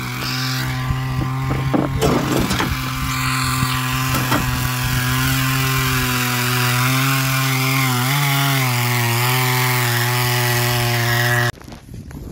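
Powered ice auger's small engine running steadily at high speed while drilling through lake ice. Its pitch wavers briefly about eight seconds in, and the sound cuts off abruptly near the end.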